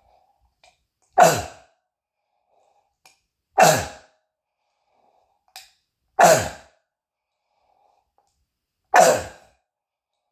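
A man's harsh, barking croup cough, like a seal's bark: four loud single coughs about two and a half seconds apart, each about half a second long, with a voiced tone that drops in pitch. The cough comes from croup irritating his windpipe and throat, with phlegm coming up.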